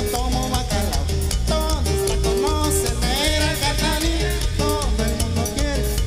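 Latin dance band music with a strong, steady bass line under a moving melodic lead.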